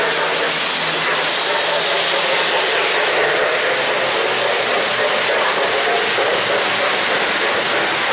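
O-gauge model passenger train rolling past on three-rail track: a steady rush of wheels on the rails with a faint low hum underneath.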